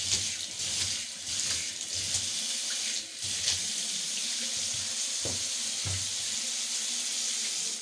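Tap water running steadily into a bathtub, a continuous even hiss.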